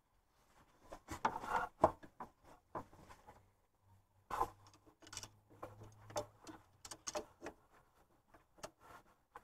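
A screwdriver scraping and clicking against a serpentine belt tensioner and its pulley as it is pried back to work the belt off, with the engine off. The sounds are irregular short clicks and scrapes, the busiest stretch about a second in.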